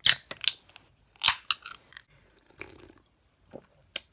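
Aluminium can of LaCroix sparkling water being handled and its pull tab clicked and cracked open in a series of sharp clicks, then a couple of soft gulps as it is drunk near the end.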